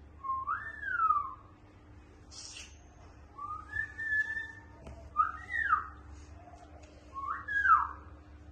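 African grey parrot whistling: four short whistled phrases, each sliding up and then down in pitch.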